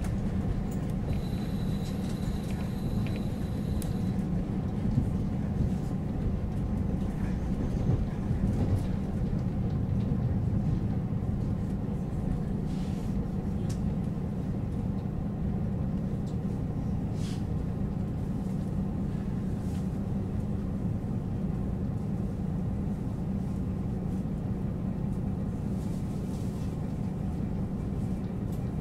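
JR Hokkaido KiHa 40 series diesel railcar standing at the platform with its diesel engine idling, a steady low rumble. A faint high steady tone sounds for a few seconds near the start.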